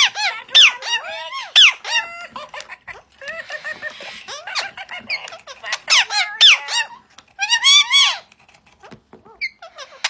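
High squeaky chirps and whistled calls with quick rising and falling pitch, in several loud bursts with quieter gaps, from a male eclectus parrot and a Rock-a-too animatronic toy cockatoo.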